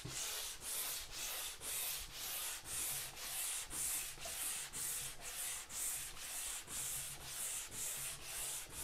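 Hand sanding block with 320-grit sandpaper rubbed back and forth over a wet wood-finished cabinet top, a hissing scrape on each stroke, a little over two strokes a second. This is wet sanding with refinishing liquid to level and smooth a rough, worn old finish.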